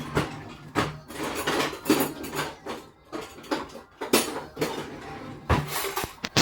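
Hands handling packaging and small objects at close range: irregular rustling, crinkling and light clattering knocks, with a sharper knock about five and a half seconds in.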